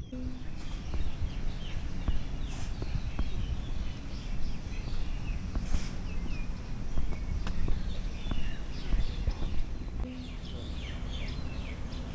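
Birds chirping and calling in short, quick notes that slide up and down, thickest near the end, over a steady low outdoor rumble. Two sharp clicks come a few seconds apart.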